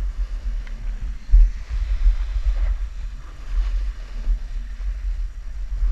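Wind buffeting the microphone of a camera carried by a skier moving downhill, a gusty low rumble with a stronger gust about a second and a half in.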